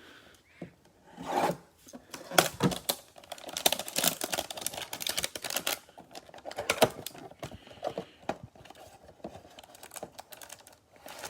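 Hands tearing and crinkling cardboard and plastic trading-card packaging, with rapid clicks and taps, in irregular bursts that are busiest for the first several seconds.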